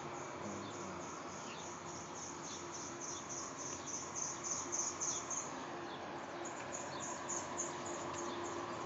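Insects chirping in a fast, even series of short high chirps, about four or five a second, over a faint steady hum.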